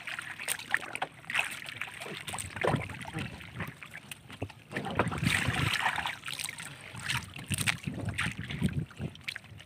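Water lapping against a small outrigger canoe on a choppy sea, with wind on the microphone and scattered knocks and rustles in the boat as a fish is hauled in on a handline.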